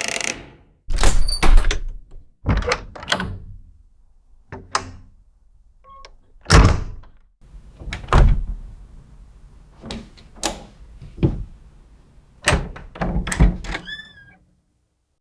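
A door being worked: a string of about eight sharp knocks and clunks of latch and frame, spaced a second or two apart, with a few short hinge squeaks among them.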